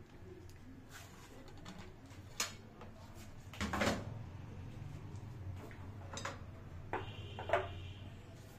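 Faint knocks and clinks of kitchen dishes being handled, a few scattered ones with the loudest about four seconds in and a short ringing clink near the end, over a low steady hum.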